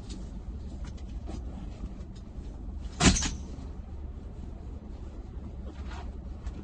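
Steady low rumble of a car interior, with faint small ticks and one sharp clunk about three seconds in.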